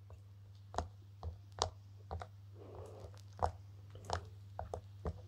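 Silicone pop-it fidget toy bubbles being pressed in, each giving a short soft pop: about nine faint, irregular pops over five seconds.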